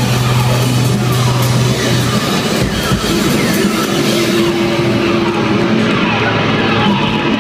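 Live rock band playing loud, with a drum kit and distorted electric guitars.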